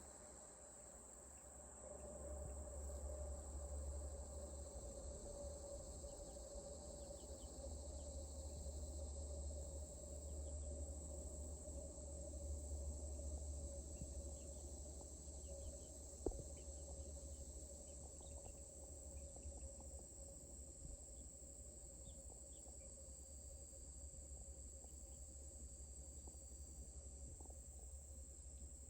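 Steady outdoor insect chorus, crickets trilling high and unbroken, with a steady lower hum and a low rumble underneath. A single sharp click comes about 16 seconds in.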